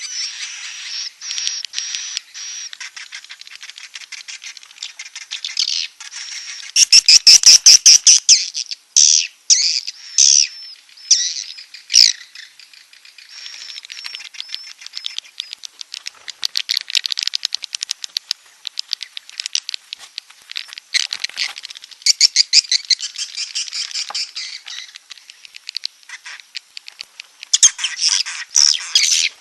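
Recorded swiftlet calls from a swiftlet-house lure track: dense, rapid chirping trills and twitters, with louder bursts of chatter from about seven to twelve seconds in and again near the end.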